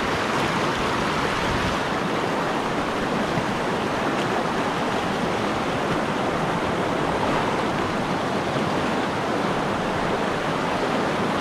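Shallow, fast mountain stream rushing over boulders and stones in white-water rapids: a steady, even rush of water.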